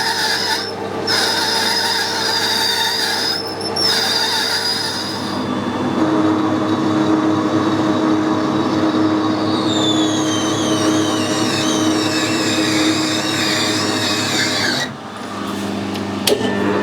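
Metal lathe cutting brass bar stock, the tool squealing against the work over a steady machine hum. A high squeal wavers for the first few seconds, and from about ten seconds in a run of squeals falls in pitch. The sound breaks off briefly a few times.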